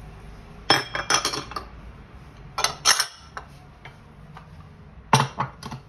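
Utensils clinking against a glass mixing bowl as white sugar is tipped in from a cup onto butter and brown sugar: three short bursts of clatter, about a second in, around three seconds, and just after five seconds.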